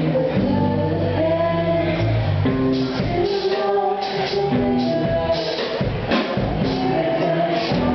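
Live rock band playing a song: electric guitar over a drum kit with regular cymbal and drum hits.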